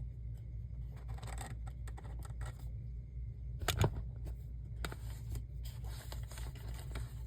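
Scattered small clicks and scraping over a steady low hum, with one sharper click a little past the middle.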